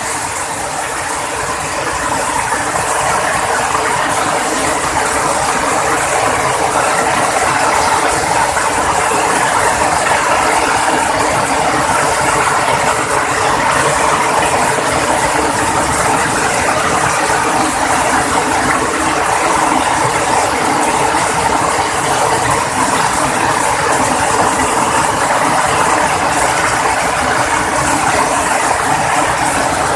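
Heavy rain pouring steadily, a dense unbroken hiss and patter.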